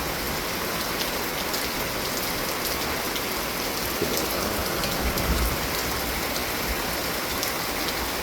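Steady rain falling, with scattered drop ticks, and a short low rumble about five seconds in.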